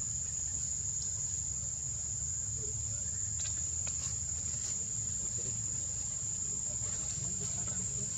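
Insects droning, one steady high-pitched tone that does not change, over a low steady rumble, with a few faint ticks.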